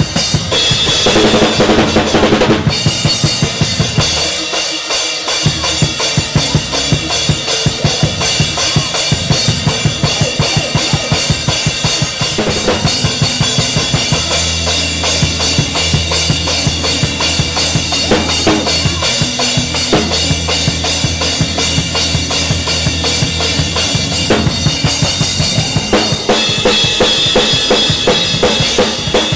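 Drum kit playing a fast gospel praise-break groove: rapid kick, snare and cymbal strokes, with cymbal crashes near the start and again near the end. Deep held bass notes sound under the drums through the middle.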